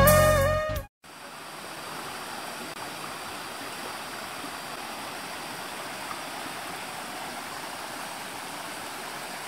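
Guitar music fades and cuts off in the first second. Then comes a steady rush of water from a shallow rocky stream, with a waterfall heard from afar.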